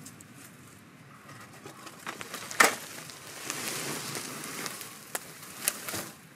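A cut cedar log being heaved up and dragged over dry forest litter: one sharp crack of wood about two and a half seconds in, then rustling and scraping of needles and twigs, with a few smaller snaps near the end.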